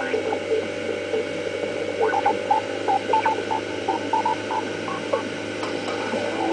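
Motorboat engine running steadily at towing speed, a constant hum over the rush of water and wind, with music playing over it: a tune of short notes, plainest in the middle.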